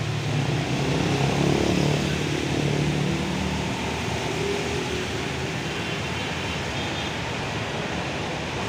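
Intercity coach's diesel engine running as it moves slowly past at close range, loudest about a second or two in, with tyres hissing on the wet road and passing traffic.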